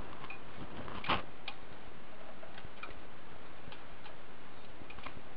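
Small metallic ticks and a light knock from a hand tool tightening a set screw on a garden tractor's hydrostatic transmission linkage. One sharper knock about a second in, then scattered faint ticks.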